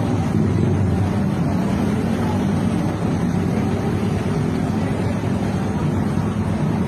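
Steady low rumble of street traffic and running vehicle engines.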